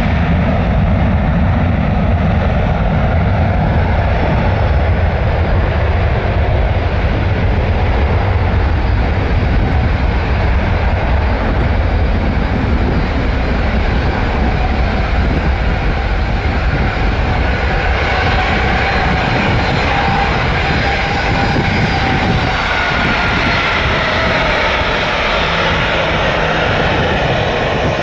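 Boeing 737-900 jet airliner's CFM56 turbofan engines running at high power on departure: a loud, steady roar with a heavy low rumble. In the later part faint whining tones fall in pitch as the aircraft passes.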